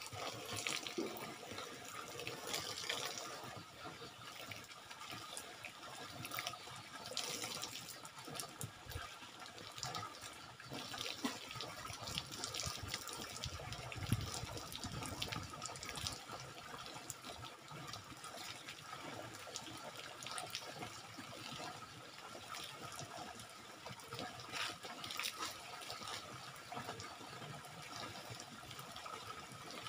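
Water from a homemade outdoor shower pouring steadily over a person and splashing onto a bamboo slat floor, with irregular spattering.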